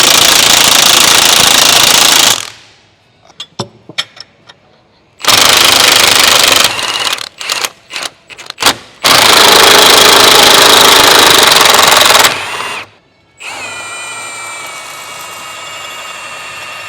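Large impact wrench hammering at bolts in three long bursts, the first already running at the start, with metal clinks between them. For the last few seconds a steady, quieter whine with several pitches follows.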